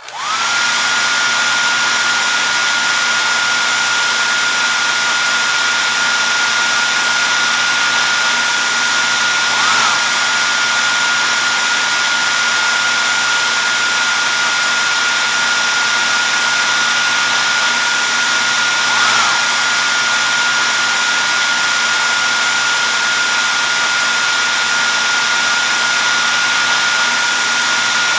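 A small band saw's electric motor starting and spinning up within half a second, then running steadily with a high whine over a wide hiss. Its pitch dips briefly three times, about every nine to ten seconds.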